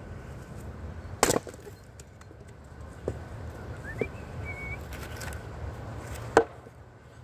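Firewood being handled at a chopping block: two loud wooden knocks about five seconds apart, the second as a split piece is set down on the block, with two lighter clacks between. A short high chirp sounds midway, over a steady low rumble.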